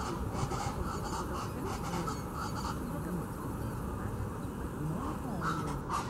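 Guacharacas (chachalacas) giving raucous, repeated calls, with a rapid pulsing chatter in the first half that thins out about halfway through.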